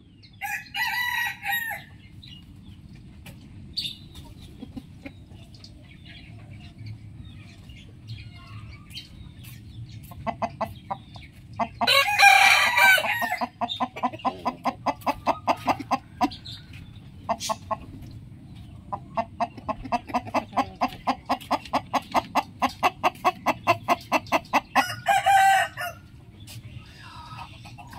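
Roosters crowing three times: a short crow at the start, a loud long one about halfway through, and another near the end. Between the crows come long runs of rapid rhythmic clucking, about four clucks a second, over a steady low background hum.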